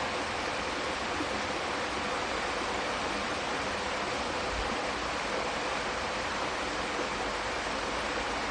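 Steady rushing water, an even unbroken hiss with no change in level.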